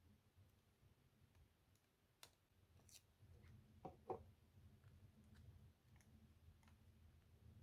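Faint scattered clicks and taps from handling journaling materials and tools on a desk, with two sharper taps close together about four seconds in, over a low steady hum.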